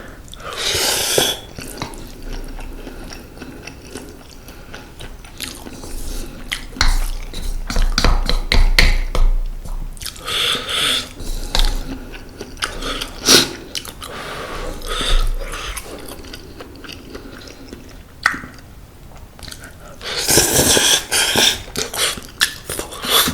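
Close-miked eating of instant mala ramen noodles: wet chewing and biting with small clicks and crackles, and three louder noisy stretches of a second or two, about a second in, around ten seconds and around twenty-one seconds.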